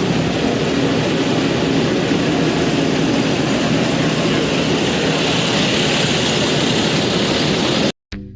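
Steady, loud mechanical din with a low hum, like a large engine or machinery running, which cuts off abruptly near the end as music with plucked guitar notes starts.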